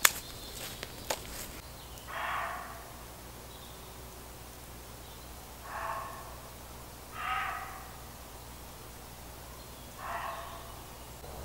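Dry sticks snapped by hand for firewood, a few sharp cracks in the first second or so. Then four short, harsh animal calls, each about half a second long, spaced a few seconds apart.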